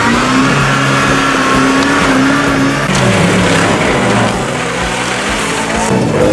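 Off-road 4x4 engine running hard under load, its revs held steady, then dropping about three seconds in and climbing again near the end.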